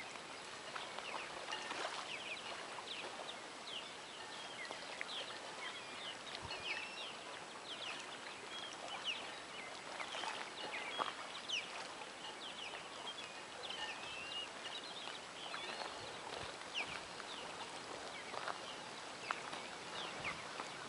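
Many small birds chirping and twittering in short, quick calls throughout, over a steady outdoor hiss, with a few soft knocks.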